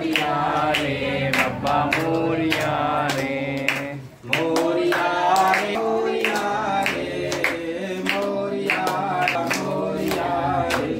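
A group of people singing a devotional chant to Lord Ganesha together, kept to a steady sharp beat about twice a second. The singing breaks off briefly about four seconds in.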